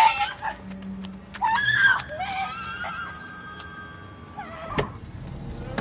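A woman shouts once for help, then a bell rings steadily for about two and a half seconds and cuts off sharply.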